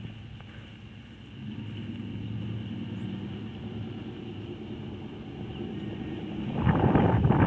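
A low steady rumble, then near the end loud thudding and scuffling as the young horse sets off, its hooves striking the soft dirt of the pen.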